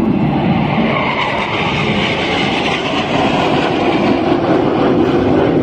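Jet engine noise from a formation of KAI T-50B Golden Eagle jets flying past: a loud, steady rushing sound with a hiss that grows stronger about a second in.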